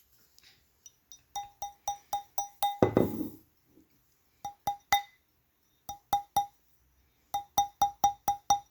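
Quick hammer taps on a ring seated on a metal ring mandrel, each tap giving a short, clear metallic ring. The taps come in little runs of three to seven, about three or four a second, with one duller, heavier knock among them.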